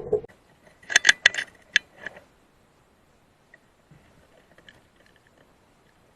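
A quick run of about six sharp mechanical clicks over roughly a second, followed by faint scattered ticks.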